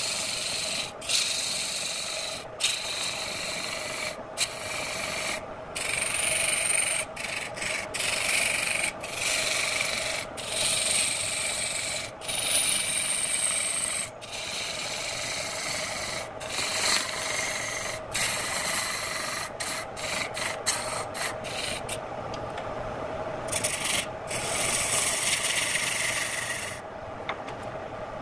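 Lathe chisel cutting a spinning redwood vase blank on a wood lathe: a continuous hissing scrape of wood being shaved, broken by many short gaps as the tool lifts off the wood. A steady hum runs under it from the lathe motor.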